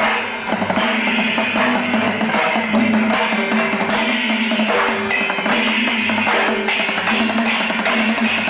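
Kerala temple percussion ensemble (chenda melam) playing: loud drums and cymbal strikes in a steady rhythm over a held low tone.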